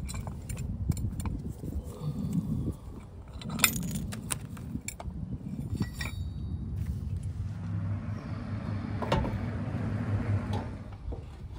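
Metal clinks and rattles from a trailer tongue jack's foot and its safety pin being handled and pulled, over a steady low rumble.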